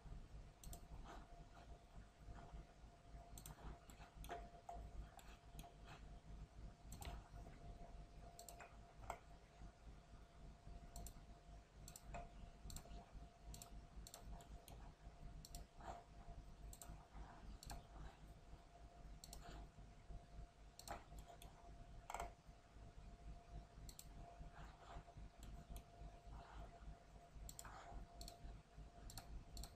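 Faint computer mouse clicks at an irregular pace, over a faint steady hum.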